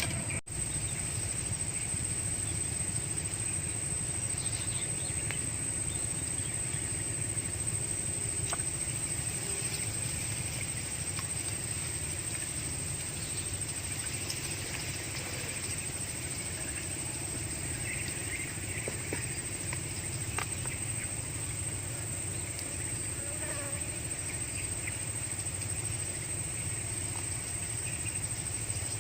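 Steady outdoor ambience: a continuous high-pitched insect drone with a low rumble underneath and a few faint scattered clicks.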